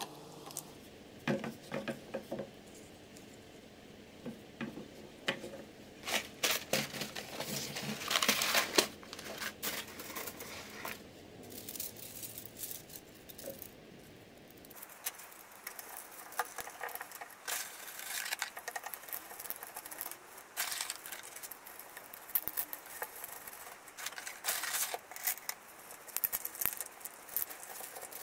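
Knocks and scraping as grey PVC pipe pieces are handled and fitted together on wooden boards. About halfway through, this gives way to a busy patter of light clicks as handfuls of thin bamboo skewers are rattled and packed into a PVC pipe holder.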